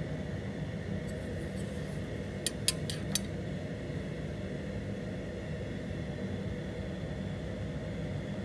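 Four quick, light metallic clicks close together, about two and a half to three seconds in, from the stop bar of a squaring shear's back gauge being handled and adjusted, over a steady low background hum.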